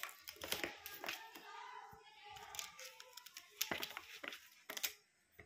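Irregular clicks and knocks of plastic cat toys, a ball-track tower and a spring-mounted toy mouse, as a kitten bats at them.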